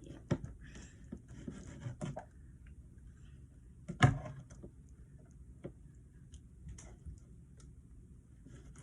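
Scattered light knocks and clicks of things being handled, with one louder knock about four seconds in.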